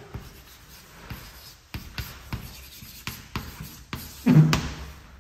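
Stick of white chalk scratching and tapping on a blackboard while a signature is written in quick strokes, with a short, louder sound about four seconds in.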